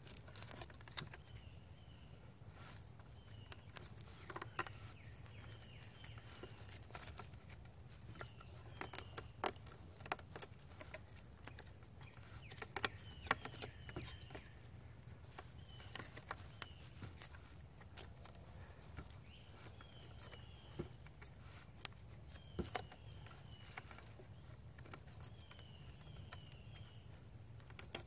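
Hands wrapping and pulling cord around the legs of a pine-pole sawhorse, with scattered crackles and rustles of bark and dry pine needles, a few louder snaps around the middle. A bird repeats short falling chirps, often two or three in a row, in the background.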